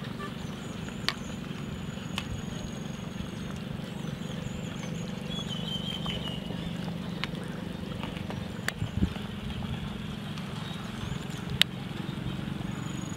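A few sharp clinks of a metal spoon against a metal cooking pot, over a steady low rumble, with a few faint bird chirps.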